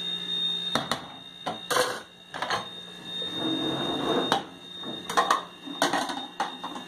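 Sharp metallic clanks and knocks, about nine or ten spread out, as an aluminium pressure cooker's lid is handled and fitted onto the pot.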